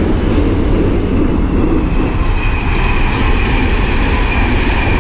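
Train passing on the railway beside the canal: a loud, steady rumble, with a faint high whine coming in about two seconds in.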